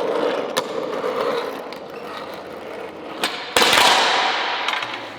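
All-metal CNC-machined skateboard rolling on metal wheels with a steady grinding rumble, then a loud metallic clang about three and a half seconds in as the board hits the ground, ringing briefly as it fades.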